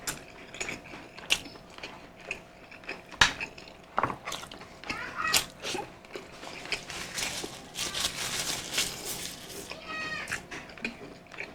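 Close-up eating sounds from a mukbang of balbacua stew: chewing, lip-smacking and slurping, with sharp clicks of a spoon against the bowl, the loudest about three seconds in, and a longer stretch of slurping in the second half. A brief high-pitched rising-and-falling call comes twice, around the middle and near the end.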